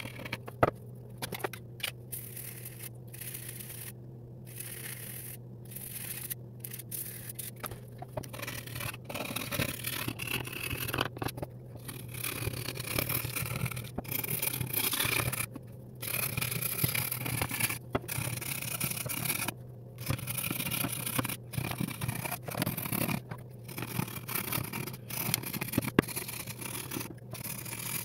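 A knife blade scraping along a Lee Enfield rifle's wooden stock in repeated short strokes, shaving off softened cosmoline and old finish. The strokes come more sparsely for the first several seconds, then closer together.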